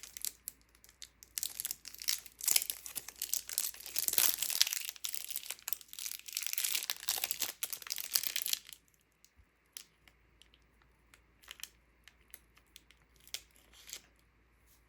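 Candy wrapper being crinkled and torn open, a dense crackling rustle for about the first nine seconds, then only a few faint scattered clicks and rustles.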